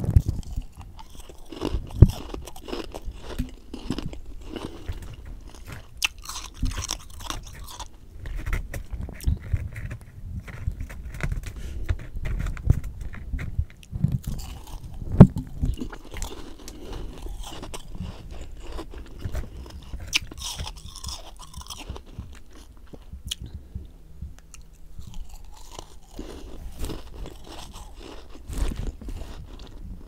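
Close-miked chewing and crunching of a mouthful of humidifier freezer frost. Crisp, dense crunches run throughout, with sharp, loud bites about two seconds in and about fifteen seconds in.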